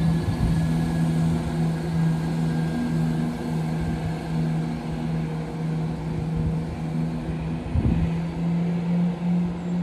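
Class 170 Turbostar diesel multiple unit moving away from the platform, its diesel engine holding a steady low drone. Gusts of wind buffet the microphone with low rumbles.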